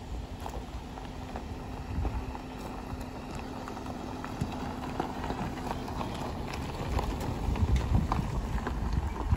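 A SsangYong Tivoli compact SUV rolling slowly along a gravel road, its tyres crunching over loose stones under a low engine rumble. It grows louder as it passes close by, about eight seconds in.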